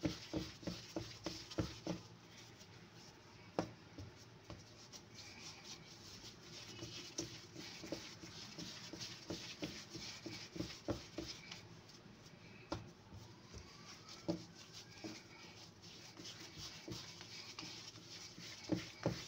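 Hands kneading and rounding balls of stiff mantı dough on a floured stone countertop: soft rubbing with faint pats and taps, coming thick and fast in the first two seconds, then scattered.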